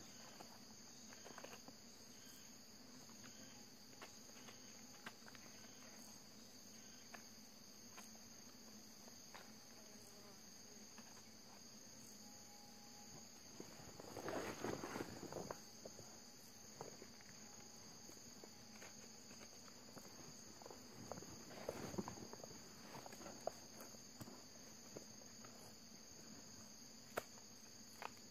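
Faint, steady high-pitched chirring of insects in the forest undergrowth. About halfway through, and again about three quarters through, there are short spells of rustling in dry leaf litter.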